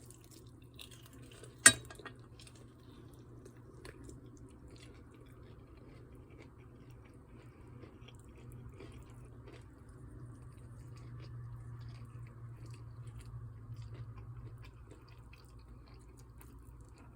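Someone chewing fried food with their mouth close to the microphone, with soft scattered crunching and ticks. About two seconds in there is one sharp, loud click, like a utensil or container knocking. A steady low hum runs underneath.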